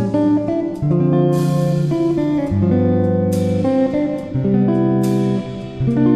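Background music led by guitar, with notes changing about once a second and a cymbal-like crash a few times.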